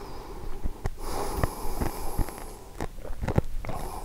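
A man chewing an extremely salty challenge chip close to a clip-on microphone: many wet mouth clicks and heavy breathing through the nose, with a long noisy breath from about one to two and a half seconds in.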